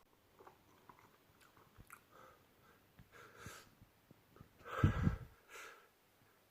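A person's sneeze build-up: faint sniffs and catching breaths, then a short, sharp sneeze about five seconds in, followed by a brief second burst of breath.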